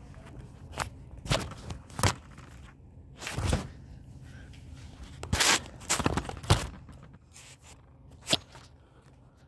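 Handling noise from a phone being moved about in the hand: about eight scattered knocks, with two longer rubbing or brushing sounds about three and a half and five and a half seconds in.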